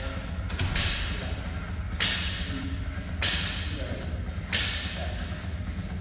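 A barbell loaded with bumper plates hits the rubber gym floor on each deadlift rep: four sharp clanks about a second and a quarter apart, each ringing briefly in the hall.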